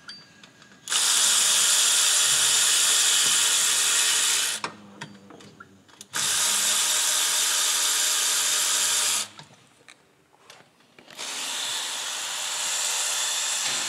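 A power tool running in three bursts of about three to four seconds each, separated by short pauses with a few light clicks; the third burst is quieter.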